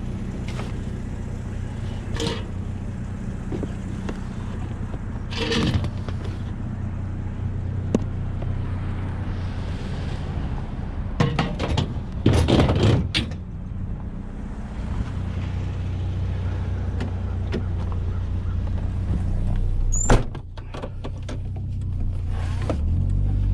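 GMC Sonoma pickup's engine running steadily with road noise, broken by several clunks and rattles, the loudest about twelve to thirteen seconds in, and a sharp knock about twenty seconds in.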